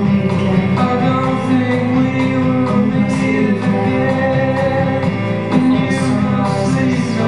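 Recorded song played through a theatre's sound system: singing over guitar, steady and unbroken.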